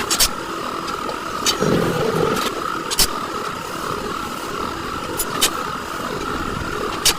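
A steady engine-like hum with about six sharp knocks at irregular intervals, typical of metal being struck while working on a truck's leaf spring.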